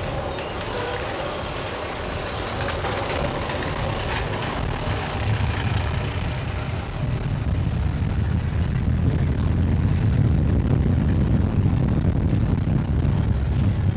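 Magnum XL-200 roller coaster train running at speed on its steel tubular track: rushing wind on the microphone over the rumble and rattle of the train. The low rumble grows louder about halfway through.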